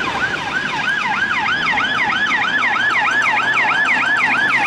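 Electronic police-car siren in a fast yelp, each rising-and-falling sweep repeating about four times a second.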